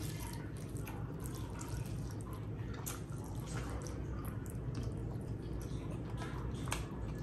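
Wet, sticky squelches and clicks of fingers mixing curry-soaked rice on a steel plate, with chewing through a full mouth, over a steady low hum.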